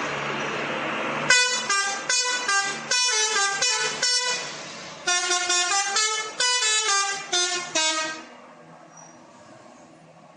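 Bus 'telolet' multi-tone air horn playing its quick jingle: a rapid run of short notes stepping up and down in pitch, in two phrases, starting about a second in and stopping near the end. Before it a steady noise runs and cuts off as the horn begins.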